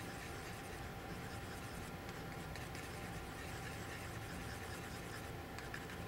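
Plastic palette knife mixing paint on a plastic palette lid: a soft, steady scraping and smearing.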